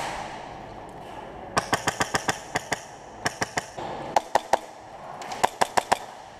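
Airsoft gun firing strings of sharp shots. A quick run of about nine starts about a second and a half in, then groups of three or four follow over the next few seconds.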